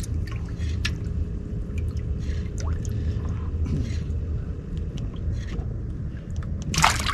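Water lapping and dripping against a fishing boat's hull over a steady low rumble, with scattered light clicks and a short, louder rush near the end.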